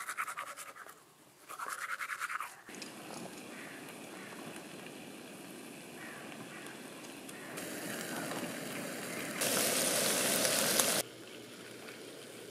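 Teeth being brushed with a toothbrush: quick rhythmic scrubbing strokes for the first couple of seconds. After that a steady hiss, with a louder, even rush for about a second and a half near the end that cuts off suddenly.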